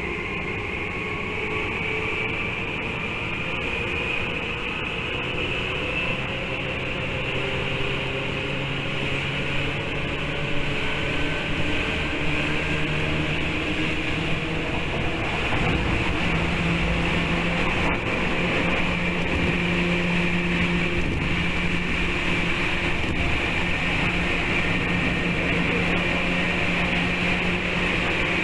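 Tokyu 8500 series electric train under way, its motor whine slowly rising in pitch as it gathers speed, then holding steady over a constant rumble of wheels on rail, heard from inside the car.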